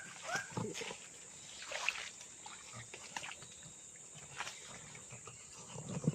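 A wild animal's call of short rising chirps, about two a second, dying out half a second in. After it come scattered soft splashes and rustles over a steady high insect drone.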